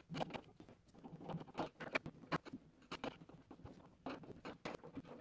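Quick, irregular small clicks, taps and rustles of hands handling hardware at the cabinet door of a flat-pack computer desk during assembly.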